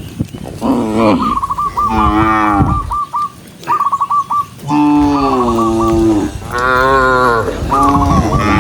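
Several cows mooing in turn, about five long calls of varying pitch, some overlapping, with short high chirping notes between them.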